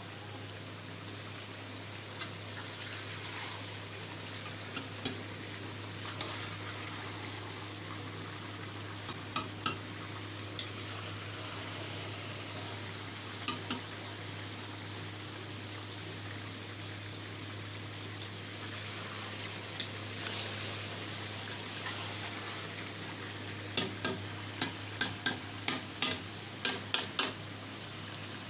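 Chicken curry frying and sizzling steadily in a pot, with a spoon stirring and now and then clinking against the pot. A quick run of clinks comes near the end.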